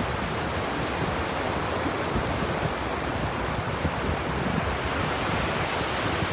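Ocean surf washing on a beach, a steady rushing wash with no separate wave breaks standing out.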